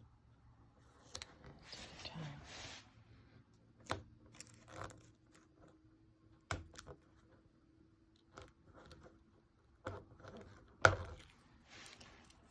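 A vinyl decal being picked at and peeled off a 2003 Nissan Xterra's plastic roof air dam: faint scratching and tearing, with scattered sharp clicks and a louder click near the end.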